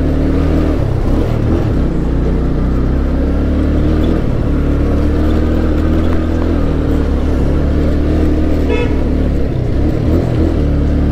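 Motorcycle engine running steadily under way, with wind rumble on the clip-on mic. One short horn beep sounds about three-quarters of the way through.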